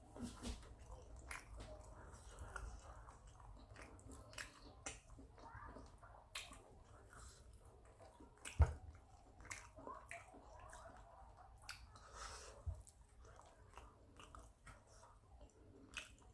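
Close-up mouth sounds of a person eating: wet chewing and smacking with small irregular clicks and bites, and one louder knock about eight and a half seconds in.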